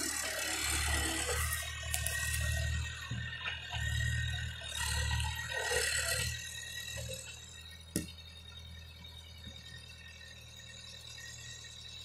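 Skid-steer loader's engine running with a rattle while it handles logs, rising and falling over the first several seconds, then steadier and quieter. A single sharp knock about eight seconds in.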